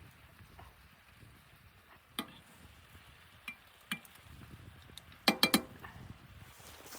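A few light clinks and knocks, like utensils against cookware, spaced out singly and then a quick run of three louder ones about five seconds in.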